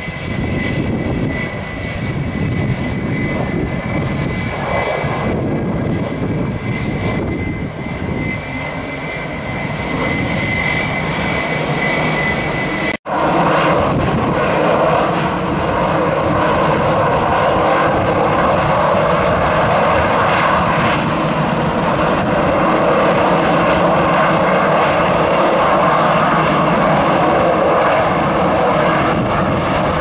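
Airbus A321 jet engines on final approach: a steady rumble with a thin, high whine running through it. After an abrupt cut about 13 seconds in, a louder, steady engine noise as the aircraft rolls down the runway after landing.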